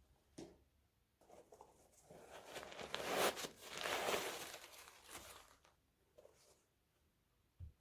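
Rustling and scraping handling noises from a trainer box and its packaging being opened, loudest for a few seconds in the middle, with a short click near the start and soft knocks near the end.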